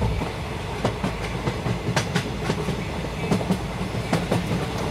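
A passenger train running past, its wheels clattering over the rail joints: a steady low rumble broken by many sharp, irregular clicks.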